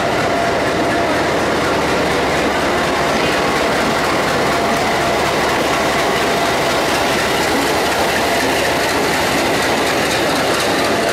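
A WDM3A diesel-electric locomotive's 16-cylinder ALCO 251 engine running under power as it pulls a passenger train away from the platform, loud and steady, together with the sound of its wheels on the rails.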